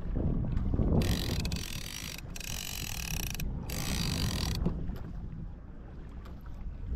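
Fishing reel working on a kayak in three bursts of about a second each, over a low rumble of water and wind on the microphone.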